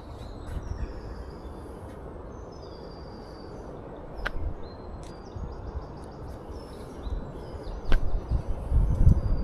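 Birds chirping over outdoor ambience, with two sharp clicks. A low rumble, like wind on the microphone, grows louder in the last couple of seconds.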